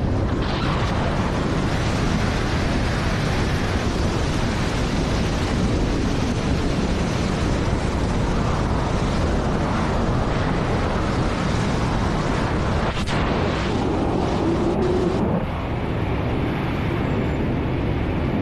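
Steady rush of wind buffeting a camera's microphone during a high-speed wingsuit flight close to a rock face.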